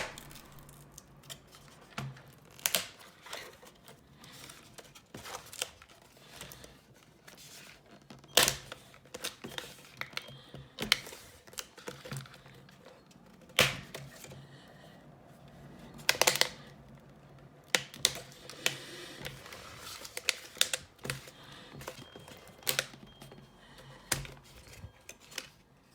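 Plastic screen bezel of an HP Chromebook 14 being pried off with a flathead screwdriver: irregular clicks and snaps as its clips and glued bottom edge let go, a few much louder than the rest.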